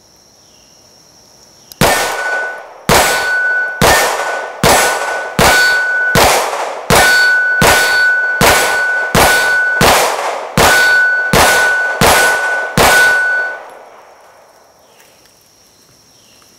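Glock 17 Gen5 9mm pistol firing about fifteen shots at a steady pace, a little under one a second. Most hits ring an AR500 steel target with a clear ping.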